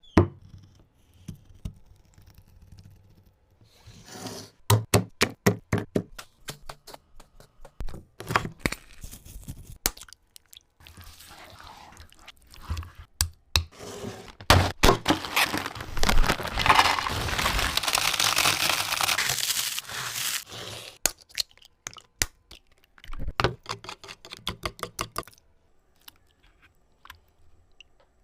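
Chicken leg pieces being handled and cooked: clusters of sharp cracks, knocks and scrapes, with about five seconds of steady hissing in the middle.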